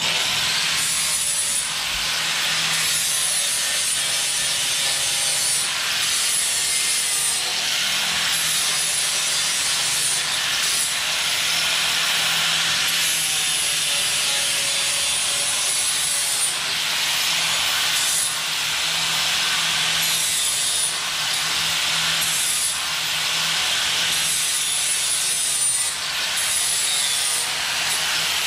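Electric angle grinder with an abrasive disc grinding small steel pieces, cleaning them to bare metal for welding. The motor's high whine sags as the disc bites and rises again between passes, with about a dozen brief let-offs.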